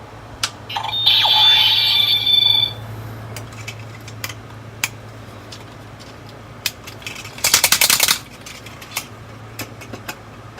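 Bandai DX Build Phone toy playing a short electronic tone effect from its speaker, then scattered plastic clicks as the toy is handled, with a quick run of rattling clicks about seven and a half seconds in.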